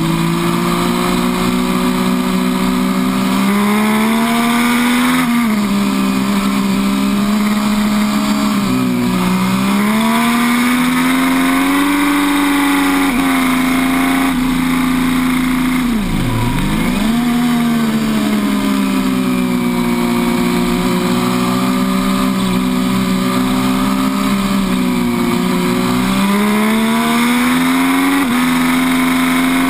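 MV Agusta F3 800's three-cylinder engine at high revs on track. Its pitch climbs, drops back at each gear change and climbs again, with one sharp dip and recovery about halfway through.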